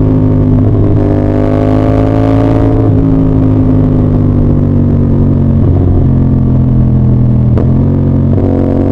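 CF Moto 450SR-S parallel-twin motorcycle engine running under way, loud and steady, with its note breaking briefly and shifting in pitch every two to three seconds as the throttle or gear changes.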